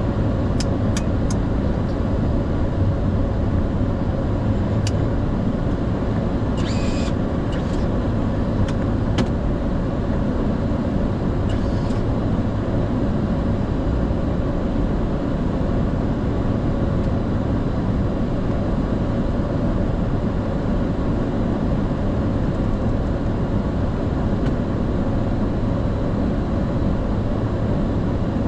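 Steady low rumble and air noise inside a Boeing 747-400 freighter's flight deck after landing, with a few faint clicks in the first dozen seconds or so.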